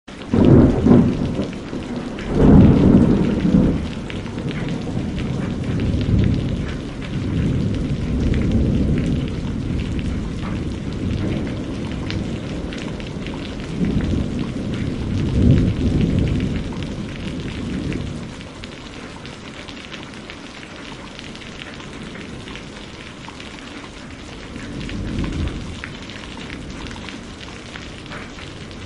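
Thunderstorm: steady heavy rain with rolling thunder, the loudest rumbles in the first few seconds and again about a quarter and half of the way in, easing to mostly rain in the last third.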